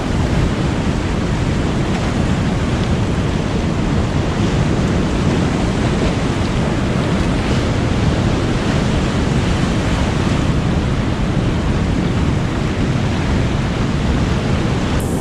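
Wind rushing over the microphone on top of the steady wash of surf, a loud unbroken noise with no separate events.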